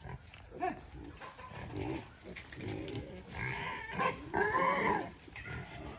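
Native black pigs grunting in short, irregular bursts, with a louder drawn-out squeal a little over four seconds in.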